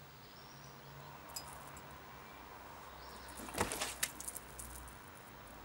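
Quiet outdoor ambience with a faint steady low hum, and a short cluster of small clicks and knocks about three and a half seconds in.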